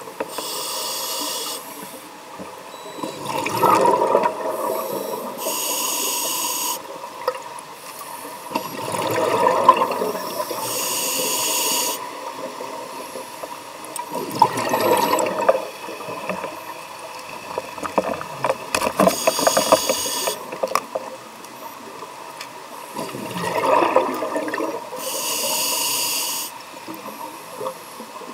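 Scuba diver breathing through a demand regulator underwater: a hissing inhalation, then a burst of exhaled bubbles, repeating about every five or six seconds.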